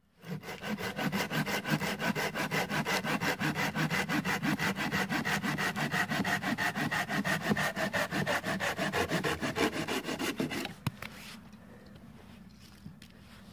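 Hand saw cutting through a wooden branch with fast, even back-and-forth strokes, stopping about eleven seconds in.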